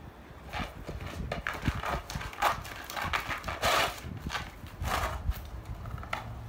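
Rottweiler puppy pawing and nosing at a plastic frisbee lying on concrete: irregular clacks, taps and short scrapes of the plastic disc and claws on the concrete, the loudest scrape a little before the middle.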